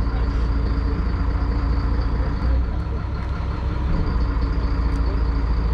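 Charter boat's engine idling with a steady low drone.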